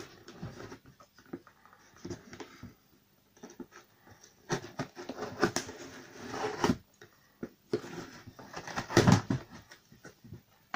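Cardboard box being opened by hand: packing tape being cut and peeled off and the cardboard flaps scraping and rustling, in irregular rips, scratches and clicks.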